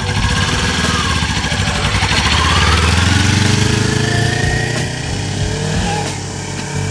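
Kawasaki Ninja 400's parallel-twin engine pulling away from a stop, rising in pitch as the motorcycle accelerates, then growing fainter as it rides off.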